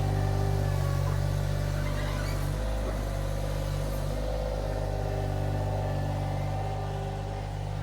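Iron Rhino IR1200 mini skid steer engine running steadily while working, its note wavering briefly about three seconds in.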